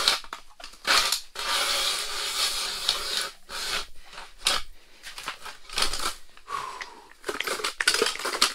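Hand-cranked ice auger with dull blades grinding down through lake ice, a crunching, scraping noise in uneven strokes broken by short pauses.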